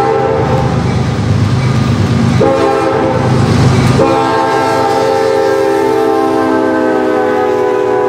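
Air horn of an approaching CSX diesel freight locomotive sounding a multi-tone chord in two long blasts, separated by a gap of about a second and a half. During the gap the locomotives' diesel engines and the train's rumble come through loudly. The horn's pitch sags slightly near the end as the lead locomotive passes.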